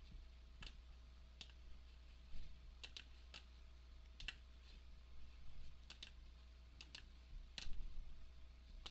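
Faint, irregular clicks of a computer mouse, about a dozen of them, some in quick pairs, over a low steady hum.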